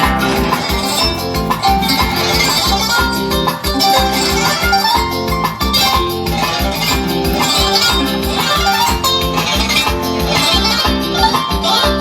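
Loud Latin American music with plucked strings playing a melody over a steady bass beat.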